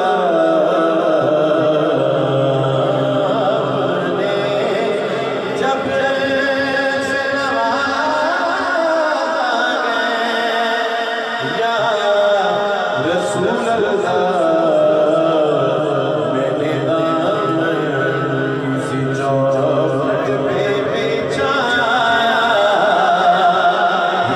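A man singing a naat, an Islamic devotional song in praise of the Prophet, into a microphone, with long, wavering, ornamented held notes.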